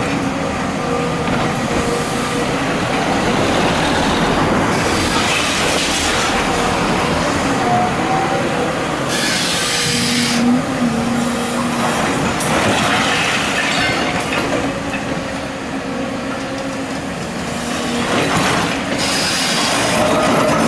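Excavator at work: a continuous loud mechanical din of engine and steel, with short pitched squeals rising out of it now and then, around a third and halfway through.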